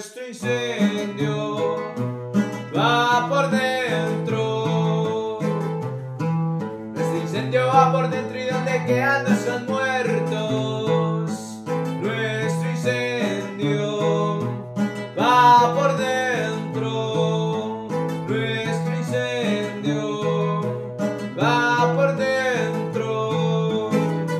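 Colombian bandola plucked in a steady, repeating pattern that alternates low notes, with a man's voice singing long, bending phrases over it about every six seconds.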